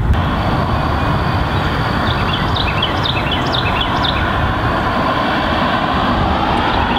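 Strong wind buffeting the microphone with a steady rushing roar. A bird chirps a quick run of short notes about midway.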